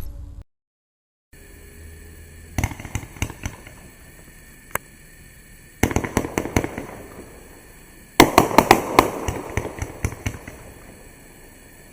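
Consumer firework cake, the 30-shot 'Presto Chango', firing its shots. There are clusters of sharp pops and crackle every couple of seconds, and the loudest volley comes about two-thirds of the way through. Just before the first shots there is a moment of silence.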